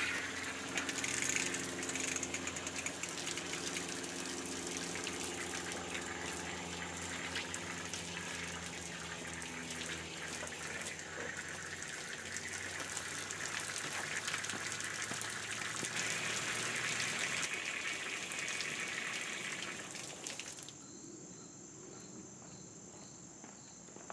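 Garden hose spraying water over plants in a steady hiss, which cuts off abruptly about 20 seconds in, leaving a much quieter outdoor background.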